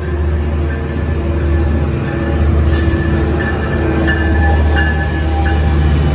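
Metrolink F125 diesel locomotive running loudly as it rolls in close alongside the platform, its engine a deep steady drone. Thin high squealing from the running gear and a brief hiss about two and a half seconds in.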